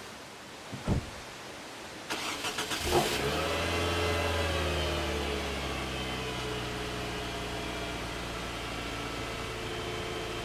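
A thump about a second in, then a car engine cranked by the starter for about a second, catching with a brief rev and settling into a steady idle.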